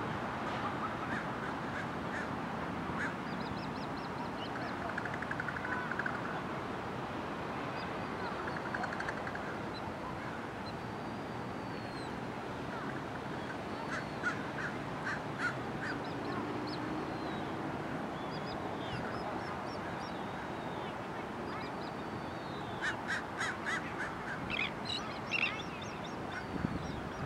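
Birds calling over a steady rushing background noise: thin high chirps scattered through, and short pulsed honking calls in a brief run about halfway through and a longer run near the end.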